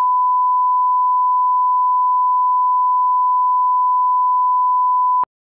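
A steady, loud sine tone at about 1 kHz: a broadcast line-up test tone between two commercials. It cuts off abruptly with a click near the end.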